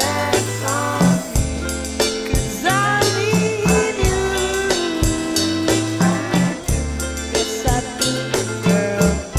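Background music: a track with a steady drum beat and a bass line.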